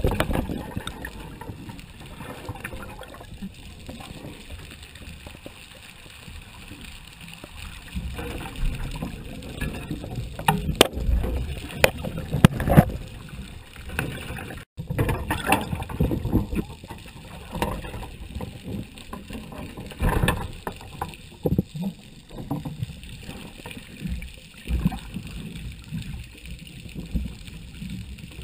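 Muffled underwater water noise: a low, uneven rushing and sloshing with several sharp knocks scattered through it, heard through an underwater camera housing at a shark cage.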